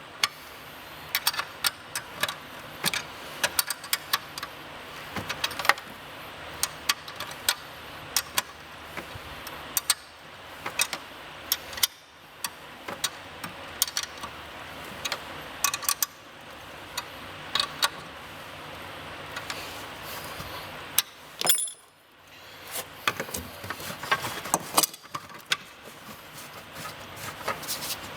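Metal hand tools clicking and clinking irregularly against a spa heater's fittings as its nuts are tightened down, over a faint steady hum.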